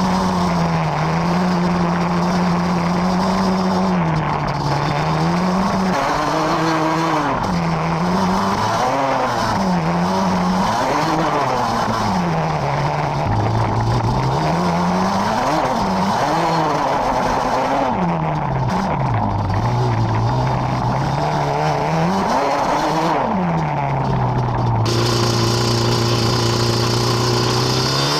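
Yamaha Banshee ATV's two-stroke twin engine revving up and down again and again as the quad is ridden along a trail, then holding a steady, lower pitch for the last few seconds.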